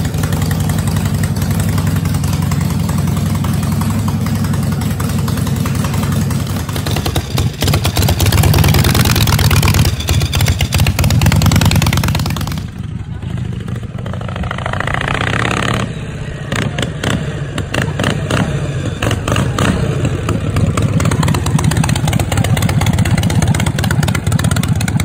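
Harley-Davidson Panhead V-twin chopper engine running, steady at first, then louder with revving. The sound changes abruptly twice, at about 13 and 16 seconds, as other clips of motorcycles running and pulling away come in.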